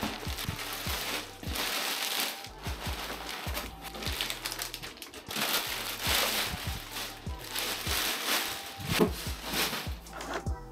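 Clear plastic packaging bag crinkling and rustling as it is pulled off foam packing blocks and bundled up, over background music with a steady beat.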